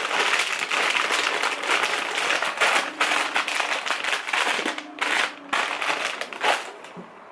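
Plastic bags or packaging rustling and crinkling as groceries are handled, dense and continuous, easing off near the end.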